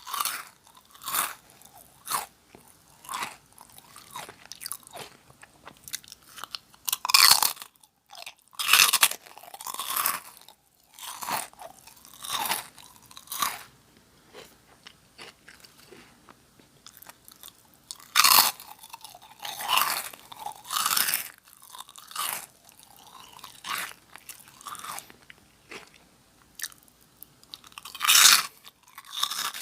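Close-miked crunching and chewing of Nongshim Jagalchi, crisp octopus-flavoured snack crackers. Sharp crackling bites come every so often, with steady crunchy chewing in between.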